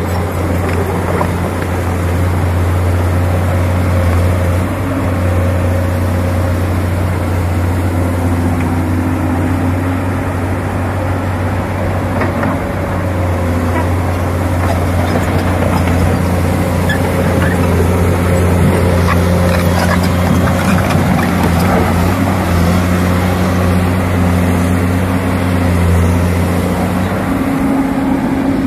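Komatsu PC200 excavator's diesel engine running under load, a steady loud drone with whining tones that shift in pitch over it and a few clanks about halfway through. The machine is travelling on one track only, an emergency move when the other track is off or its sprocket bolts have sheared.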